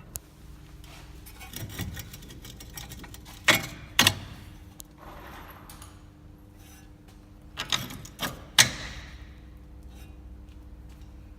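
Sharp metal knocks and clinks of tools and suspension parts being handled during reassembly of a front hub and steering knuckle. Two loud knocks come about half a second apart, and three more follow some four seconds later, with lighter clicks between, over a faint steady hum.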